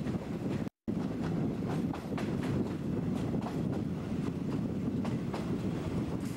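JNR 50-series passenger coach running along the track: a steady rumble of wheels on rail with repeated clicks over the rail joints, and wind on the microphone. The sound cuts out for an instant just under a second in.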